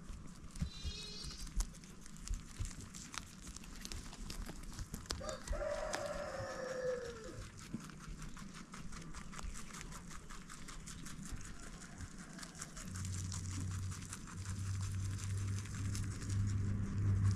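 A rooster crows once, about five seconds in, over many small clicks and a brief high chirping early on. A low steady hum starts near the end.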